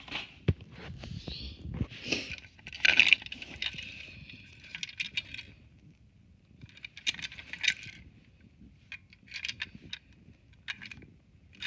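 Hard plastic toy train engine, a motorized Diesel without batteries, handled in the hand: irregular clicks, taps and light rattles of its plastic body and wheels, with no motor running.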